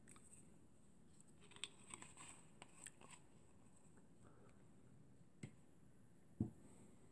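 Faint handling noises from a few light clicks and rustles, then a soft thump about six seconds in as a small glass bottle is set down.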